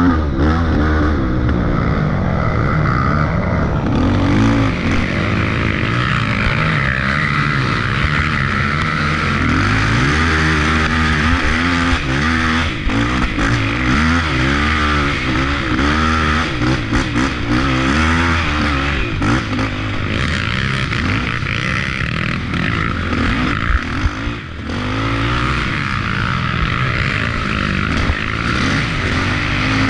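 Off-road racing dirt bike engine ridden hard on a trail, its pitch repeatedly rising and falling as the throttle is opened and closed through the gears. A few sharp knocks and clatters come in the middle.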